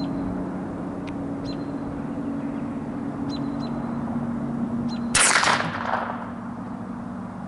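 A single .22 rifle shot about five seconds in, hitting an aerosol can, with a short rushing noise trailing off over most of a second.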